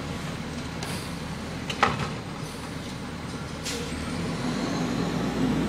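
Garbage truck's diesel engine running, with short hisses of compressed air about a second in and again near four seconds, and a single sharp knock just before two seconds. Near the end the engine note rises and gets louder.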